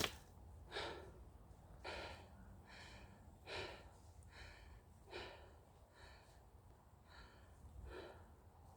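A person breathing hard and rhythmically, about one breath a second, alternating inhales and exhales, from the exertion of climbing a mountain trail.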